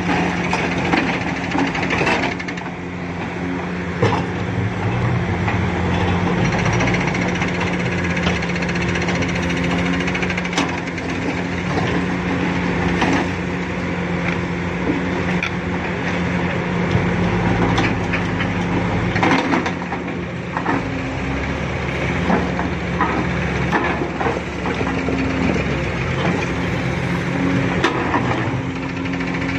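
Kobelco SK480 excavator's diesel engine running steadily as its single-shank ripper tooth tears through hard, rocky ground. Irregular knocks and scrapes come from the tooth striking and dragging stone.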